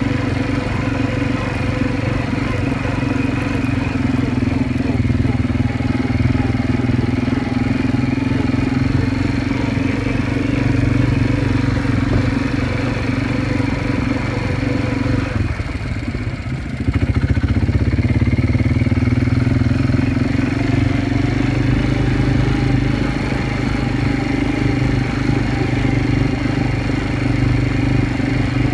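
Quad bike engine running steadily under throttle while riding over sand, easing off briefly about halfway through and then picking up again with a slight rise in pitch.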